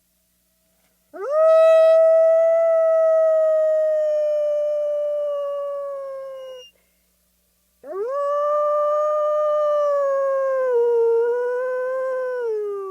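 A wolf howling twice: each howl swoops up quickly, holds a long steady note, then sinks slowly in pitch. The first lasts about five and a half seconds; the second starts about a second after it ends, wavers lower midway and is still sinking at the end.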